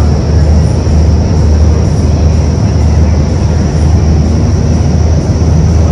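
Indoor skydiving vertical wind tunnel running: a loud, steady roar of its fans and rushing air, heaviest in the low rumble, with a thin high whine held above it.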